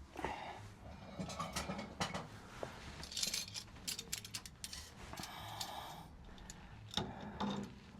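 Irregular metallic clicks, clinks and brief scrapes of hand tools working on a car's steering track rods as the adjusting collars are wound out.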